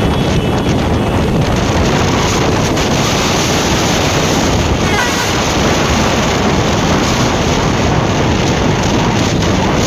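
Steady wind rushing over the microphone of a Yamaha R15 V3 motorcycle ridden at about 60 to 80 km/h in top gears, with engine and road noise mixed underneath.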